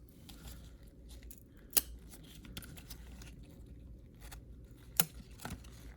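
Trading cards being handled and sorted by hand: faint rustling with two sharp clicks, about two seconds in and again about five seconds in.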